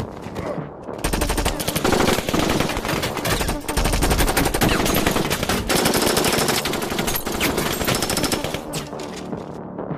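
Sustained automatic gunfire: a long run of rapid shots starting about a second in and easing off near the end.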